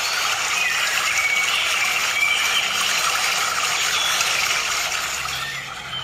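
Shallow stream water flowing, a steady rushing hiss, with a few short high chirps about one to two seconds in.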